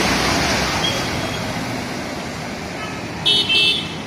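A small goods truck ploughs through floodwater, its splashing rush loud at first and fading as it moves off. About three seconds in, a vehicle horn gives two short honks in quick succession.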